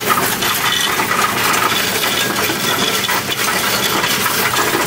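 Loose mixed coins clattering in the tray of a Coinstar coin-counting kiosk as a hand pushes them in, with a steady rattle as the machine takes them in.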